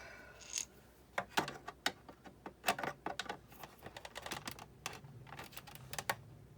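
Irregular light clicks and clacks of hard plastic parts and a tool being handled as a Sizzix Big Shot die-cutting machine is taken apart, more than a dozen of them, most clustered in the first half.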